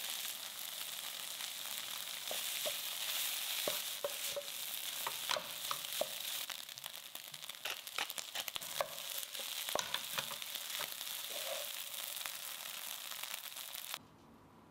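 Rice and vegetables stir-frying in a hot nonstick pan: a steady sizzle with frequent scrapes and taps of a wooden spatula against the pan. The sound cuts off suddenly near the end.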